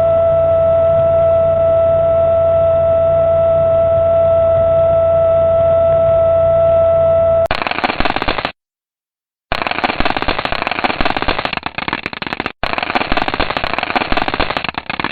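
Space-probe signal data converted to sound: a steady held tone over a low hum, then an abrupt switch, about seven and a half seconds in, to dense rapid crackling and clicking that breaks off once for about a second.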